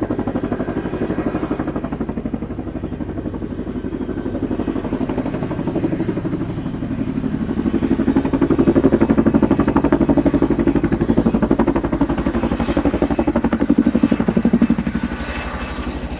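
Helicopter in flight: the main rotor chopping in a rapid, even beat over the running turbine engines, growing louder past the middle and easing near the end.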